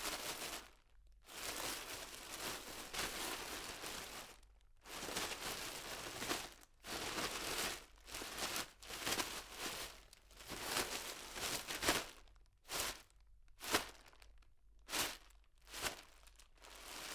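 A plastic bag being opened and handled, crinkling and rustling. Longer crinkling passes come in the first half, then shorter separate crinkles toward the end.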